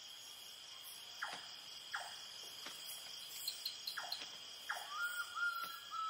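Night-time rainforest insect chorus: crickets trilling steadily at a high pitch, with a few short falling calls from other animals. A wavering whistle-like tone begins near the end.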